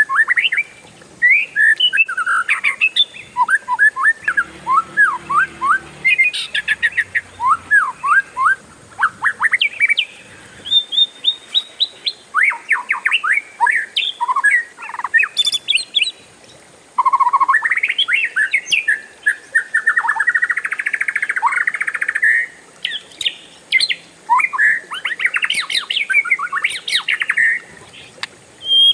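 Oriental magpie-robin singing a long, varied song of rapid whistles and chirps, running on without a break, with a dense, fast trill about two-thirds of the way through.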